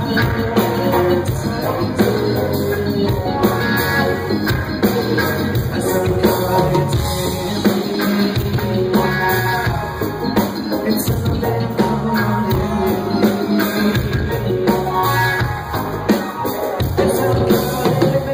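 A rock band playing live through a loud venue PA, with drum kit, electric guitar, bass and keyboards, heard from within the audience.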